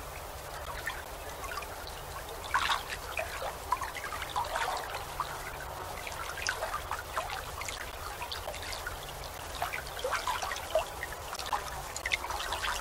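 Water lapping and trickling in many small, irregular splashes, a few of them louder, over a low steady rumble.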